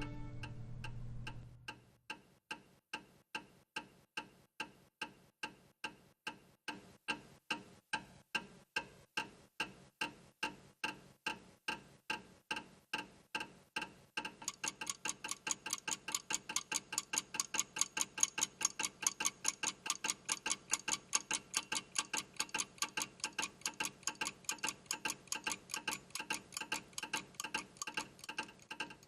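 Clockwork ticking: even, sharp ticks at first about one and a half a second. About halfway through, a second, faster ticking joins in, making it about four ticks a second.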